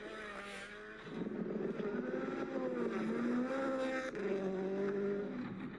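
Rally car engine revving hard under the car's own footage sound, its pitch climbing and dropping through gear changes. It grows louder about a second in and breaks briefly about four seconds in.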